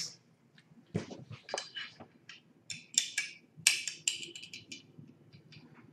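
Small steel parts of a Swiss Army Model 1882 revolver being handled during reassembly: a string of light metallic clicks, taps and scrapes in short clusters.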